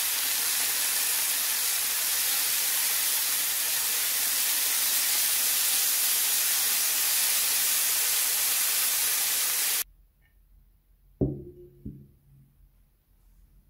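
Chicken breast fillets sizzling in a frying pan: a steady, loud hiss that cuts off abruptly about ten seconds in. Then a plate is set down on a table with a sharp, briefly ringing knock and a smaller knock just after.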